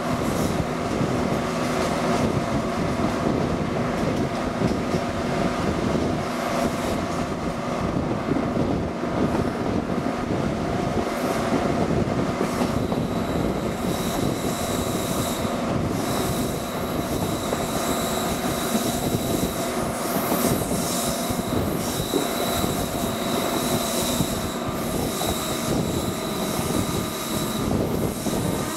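British Rail Class 55 Deltic 55022's twin Napier Deltic two-stroke diesel engines running steadily under power, heard from a coach close behind the locomotive, over the rumble and clatter of the train's wheels on the track. A thin, steady high whine joins about halfway through.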